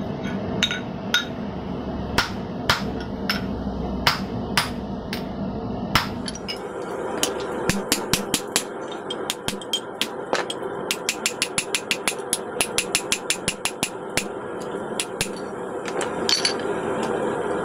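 Hand hammer blows on a handled eye tool driven into a red-hot 1050 steel hammer blank on the anvil, opening the eye. Spaced, deliberate blows at first, then about six seconds in a faster steady run of about three to four strikes a second.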